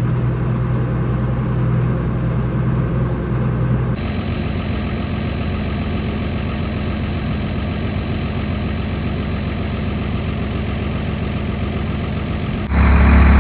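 A vehicle's engine running steadily, with an abrupt change in its sound about four seconds in.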